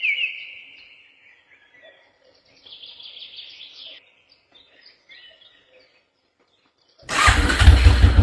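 Birds chirping in quick, sweeping calls that fade over the first second, leaving faint scattered chirps. Loud music with a heavy bass cuts in about seven seconds in.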